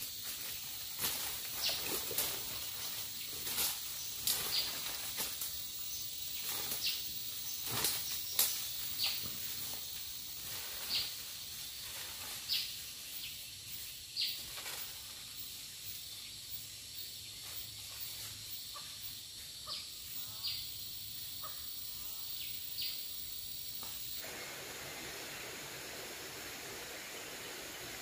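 Uneven crunching and snapping steps through dry forest leaf litter and twigs, about one or two a second, over a faint outdoor hiss. Near the end this gives way abruptly to a steady rush of flowing water.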